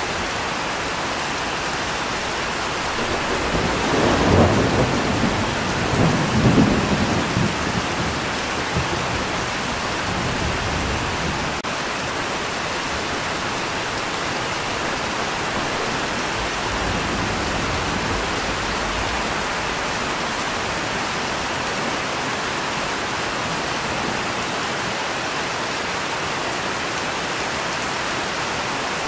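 Steady rain with a rumble of thunder about four seconds in that swells twice and dies away a few seconds later.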